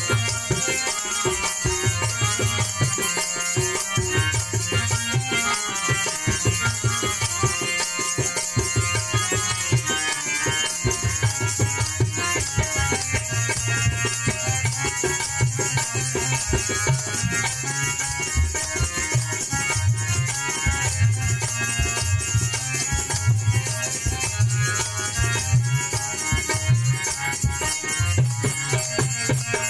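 Instrumental passage of a Baul-style Bengali folk song with hand drums and a shaker, played loud through a sound system with heavy, pulsing bass.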